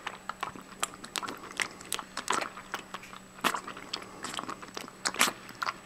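Three-and-a-half-week-old puppy lapping up milky food from a stainless-steel bowl: irregular wet clicks and smacks, several a second.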